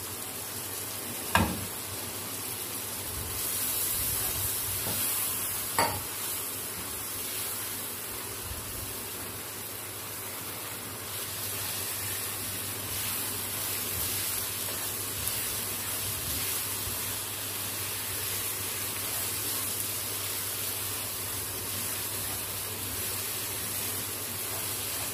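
Soaked moong dal sizzling as it is fried in oil and masala in a nonstick kadai, with a spoon stirring through it. Two sharp knocks in the first six seconds are the loudest sounds.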